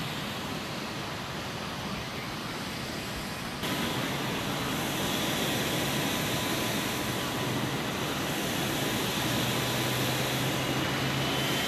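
Steady whining rush of jet engines on an airport apron, with motorcade cars and vans driving past. It steps up suddenly about three and a half seconds in, and a faint rising whine creeps in near the end.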